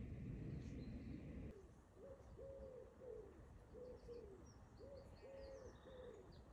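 A pigeon cooing faintly, a run of about seven soft hooting notes roughly half a second apart, starting about two seconds in. Before that there is a low rumble with a few faint bird chirps.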